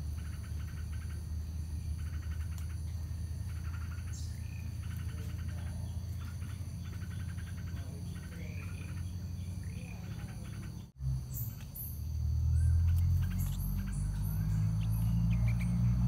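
Insects chirping in short rapid trills about once a second over a steady high insect drone, with a few sweeping bird calls. About eleven seconds in the sound cuts out for a moment, and a louder low rumble then builds.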